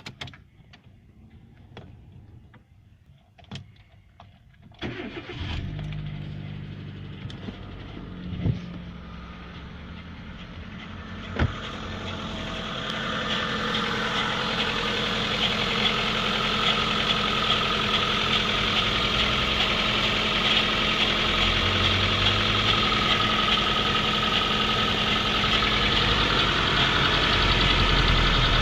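A few clicks, then a Kia Rio's engine starts about five seconds in and runs steadily. From about twelve seconds in a louder, steady whirring hiss builds over the engine.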